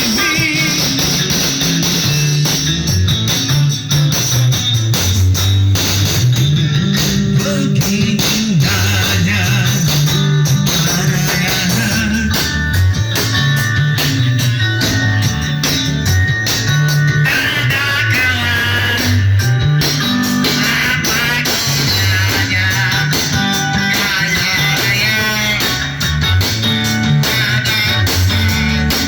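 A live band rehearsing an instrumental piece: electric guitar playing a melody over a bass guitar line, with a steady beat. The guitar bends and wavers in pitch partway through.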